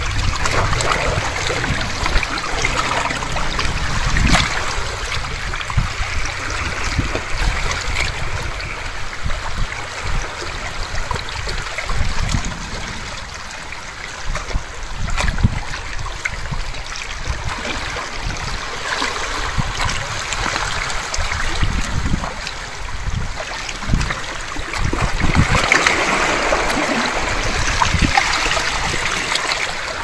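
Sea water washing and splashing against shore rocks in a steady wash, swelling louder near the end, with gusts of wind buffeting the microphone.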